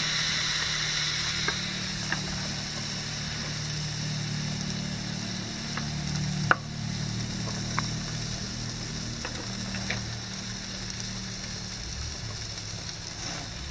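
Raw chicken pieces sizzling steadily on the grate of a hot charcoal grill, with scattered clicks of metal tongs; the sharpest click comes about six and a half seconds in.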